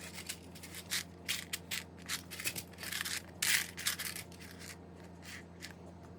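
Loose plastic building bricks clicking and rattling irregularly as they are handled and sorted through by hand, over a steady low hum.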